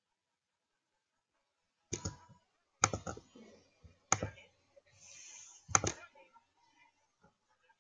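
Computer mouse clicks picked up by the recording microphone: four sharp clicks about a second apart, starting about two seconds in.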